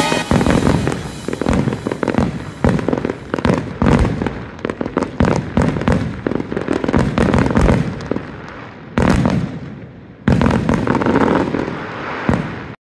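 Fireworks display: a dense run of bangs and crackling bursts with a low rumble beneath, thinning out after about eight seconds, then two sudden loud bursts about a second apart before the sound cuts off abruptly.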